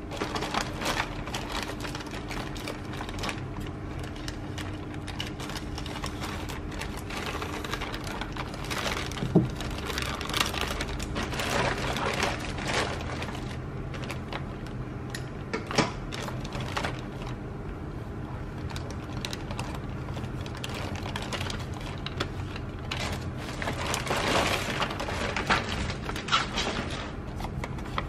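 Plastic courier mailer crinkling and rustling as it is handled and opened with scissors, with a few sharp clicks and taps among the crackle. A steady low hum runs underneath.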